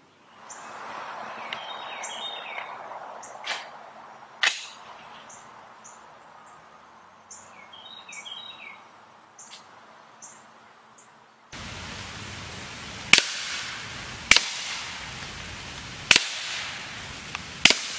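Four sharp reports a second or two apart from a suppressed 16-inch 300 Blackout AR firing subsonic 220-grain loads at a cinder block. They are the loudest sounds. Before them is a long quiet stretch with birds chirping and two faint clicks.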